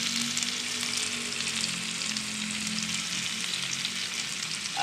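Chopped canned pork sisig sizzling steadily in a frying pan, with fine crackles, as it is stirred with mayonnaise just mixed in.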